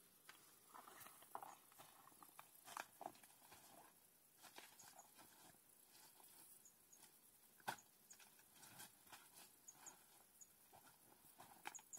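Faint crackling and rustling of footsteps and a body pushing through dry brush and twigs, with scattered snaps and one sharper crack about two-thirds of the way through.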